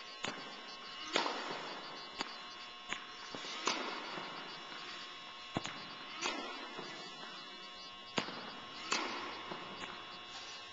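A tennis ball being hit back and forth with racquets, with sharp pops of strings on ball and bounces on the hard court, about one every second at uneven spacing. Each pop echoes briefly in the indoor hall.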